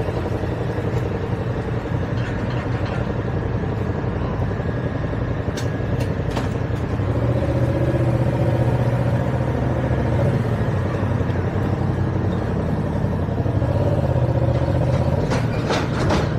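Steady low engine drone aboard a car ferry coming in to dock, growing louder for several seconds in the middle, with a few sharp clanks about five seconds in and a run of them near the end.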